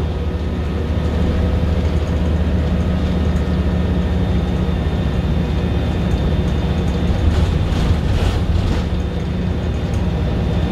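MAN 18.240LF bus's six-cylinder diesel engine running with a steady drone, heard from inside the passenger saloon, with a faint high steady whine above it. A few light rattles come through about two-thirds of the way in.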